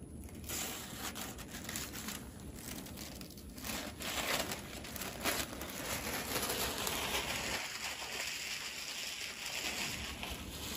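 Crinkling and rustling of a new MacBook Air's protective cover sheet as it is peeled off the screen and handled, with many small crackles.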